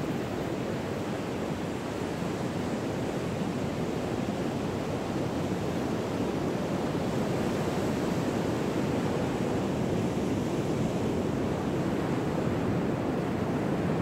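Ocean surf rolling onto a beach: a steady rushing wash of waves with no distinct breaks.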